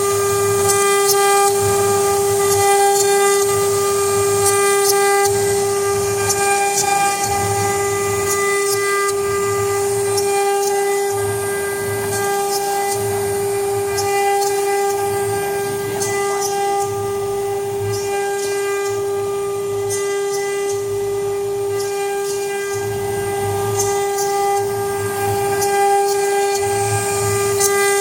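EZTER 1325 CNC router engraving, its spindle giving a steady high-pitched whine throughout. Under it a low hum pulses on and off about once a second.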